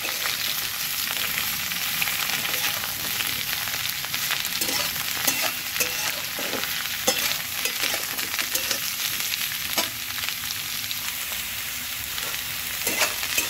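Mixed vegetables sizzling as they fry in hot mustard oil in a karai, with a spatula scraping and clicking irregularly against the pan as they are stirred.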